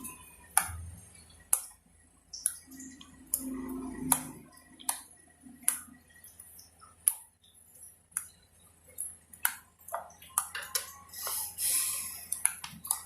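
Homemade glue slime being squeezed and poked, giving irregular sharp clicks and wet pops, about one or two a second.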